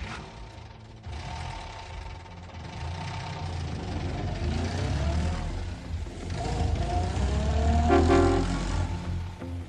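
Heavy vehicle engine running with a deep rumble, growing louder to a peak about eight seconds in, with a whine that rises and falls over it.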